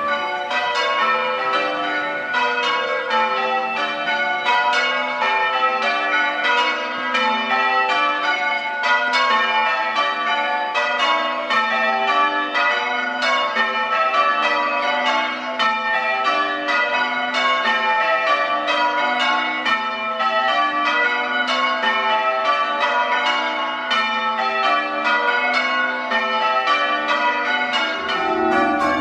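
Change ringing on a ring of six church bells: an even, unbroken stream of bell strikes, each ringing on under the next. Very loud.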